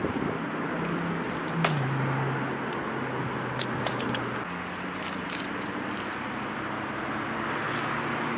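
Tarot T810 hexacopter's 320KV brushless motors spinning its 15-inch carbon propellers at idle on the ground, a steady low hum that steps down in pitch about a second and a half in and back up a few seconds later. A sharp click comes with the pitch drop, and a few light high ticks follow in the middle.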